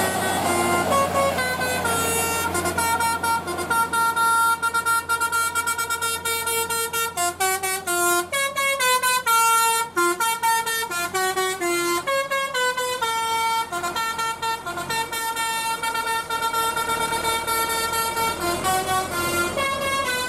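Bus's Basuri 'telolet' musical air horn playing a melody: a long run of held horn notes that step up and down in pitch every fraction of a second, with short breaks between phrases.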